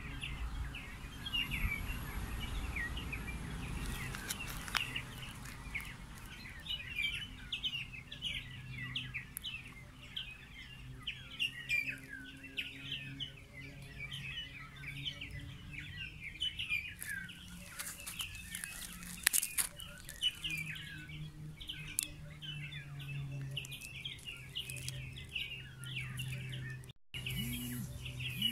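Many small birds chirping at once, with short, quick chirps overlapping continuously over a low steady hum.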